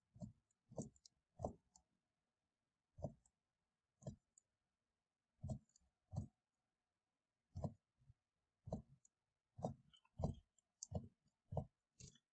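Computer keyboard keys pressed one at a time: about fourteen faint, separate clicks at uneven intervals, from a fraction of a second to a second and a half apart.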